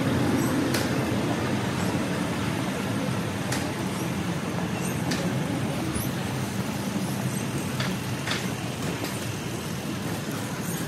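Steady low rumble of a vehicle on the move, with a few light clicks scattered through it.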